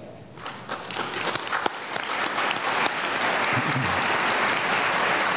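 Congregation applauding: a few scattered claps about half a second in, building within a couple of seconds into steady applause.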